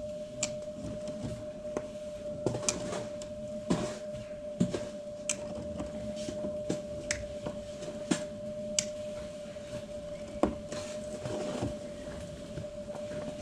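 Scattered plastic clicks and taps from a child-proof safety cap being twisted and forced on a container that won't open, over a steady high hum.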